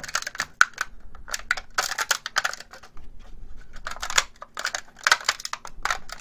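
3D-printed HTPLA support material crackling and snapping in quick, irregular clicks as it is squeezed and pried loose from inside the print by hand.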